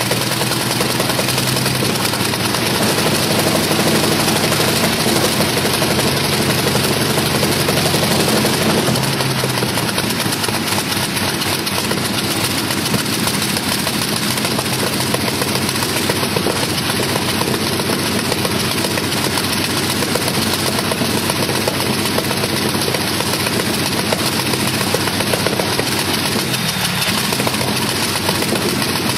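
Large V12 aero piston engine running on an open test stand with no propeller fitted, a loud steady drone that is a little louder from about three to nine seconds in, then settles.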